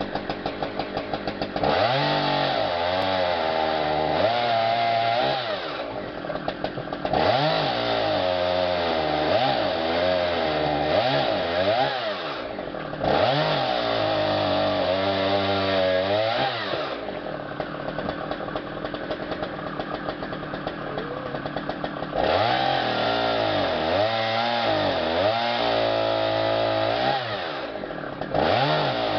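Two-stroke chainsaw cutting through logs in a run of cuts, its engine pitch repeatedly dipping and recovering under load. It drops to a lower, quieter run between cuts, longest about two-thirds of the way through.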